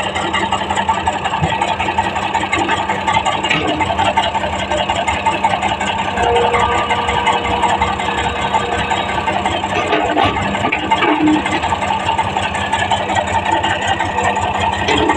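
Heavy earthmoving machine's diesel engine running steadily, with a constant deep hum and a steady whine.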